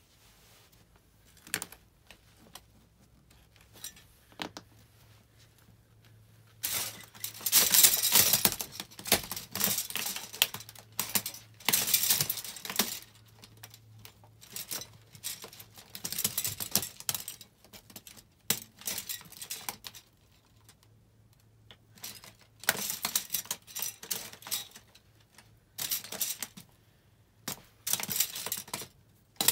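White disposable plastic spoons and forks cracking, snapping and clattering as stockinged feet crush and shuffle through a pile of them. After a few near-quiet seconds with a single click here and there, the crackling comes in dense spells separated by short pauses.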